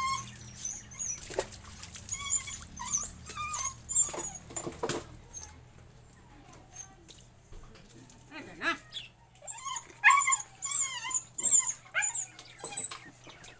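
Husky puppy whining and whimpering in many short, high-pitched cries, in two bouts with a quieter pause in the middle, with a few knocks from handling. It is crying while held for a bath it wants to escape from.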